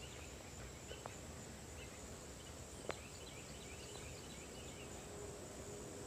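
Faint outdoor ambience: insects keep up a steady high drone, with small repeated chirps over it. There is a single sharp click about three seconds in.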